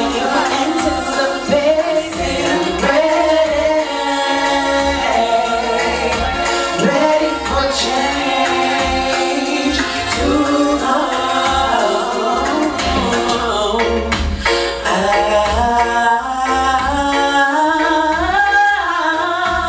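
A woman singing live into a microphone over music, her voice gliding up and down through held notes.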